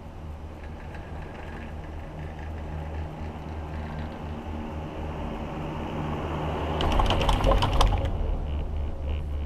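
Gondola cabin passing a cable tower, its grip clattering over the tower's sheave rollers in a quick run of clicks about seven seconds in. Under it is a steady low hum of the cabin riding the haul rope.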